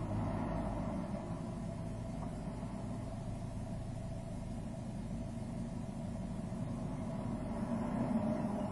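Steady low rumble of traffic heard from inside a car waiting in a queue. Near the end it grows a little louder as a JR freight train passes close alongside.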